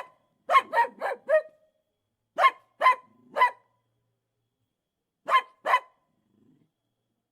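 Duck quacking: a run of four short quacks, then three, then two.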